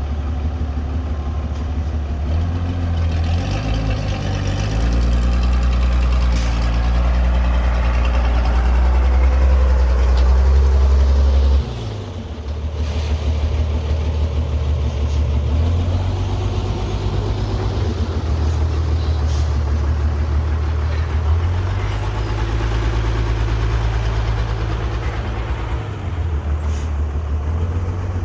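Caterpillar 312B excavator's diesel engine running under working load. Its note steps up and down as the hydraulics are worked, swelling louder for several seconds and then dropping suddenly about twelve seconds in.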